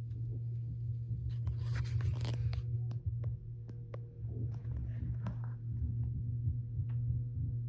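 Vacuum cleaner running in a neighbouring room or unit, heard muffled through the wall or floor as a steady low hum. Scattered sharp clicks and a brief rustle close by about two seconds in.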